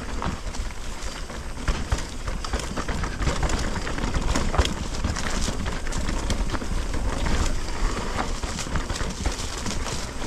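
Mountain bike descending a dirt trail: tyres rolling over dirt and rocks, with frequent rattles and knocks from the bike and a steady low wind rumble on the helmet camera. The bike and rider are brushing through overgrown plants on the trail.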